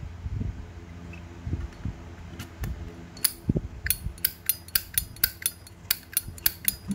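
Silver-plated Zippo lighter's hinged lid flicked open and snapped shut again and again: a run of sharp metallic clicks, about three a second, starting a little over two seconds in. The lid action sounds quite okay.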